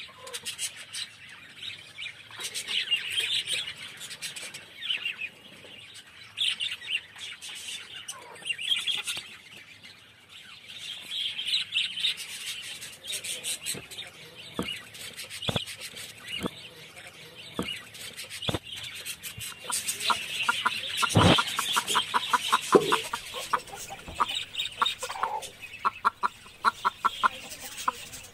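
Caged birds chirping in high repeated calls, with a hen's quick clucks coming in runs in the second half. A few sharp knocks stand out midway.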